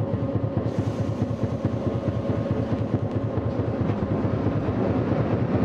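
Tosaden Kotsu 700-series streetcar running, heard from on board: a steady rumble of motors and wheels on the track with a constant hum. A hiss joins about a second in.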